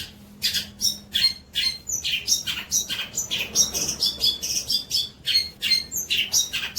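Songbird singing a fast chattering 'trotol' song of harsh notes, about three to four a second, with short whistled notes mixed in during the second half.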